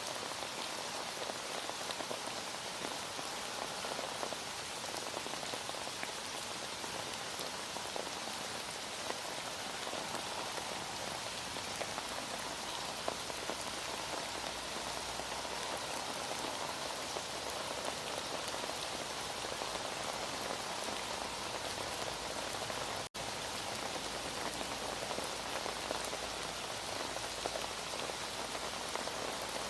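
Heavy rain falling steadily, a dense even hiss flecked with the ticks of individual drops, broken by a split-second gap about three-quarters of the way through.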